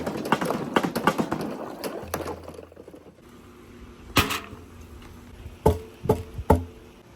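Many balls clattering and rolling down a wooden marble run, a rapid rattle of knocks that thins out after about two seconds. Then four single balls strike, each hit leaving a short ringing tone, as of a ball hitting metal.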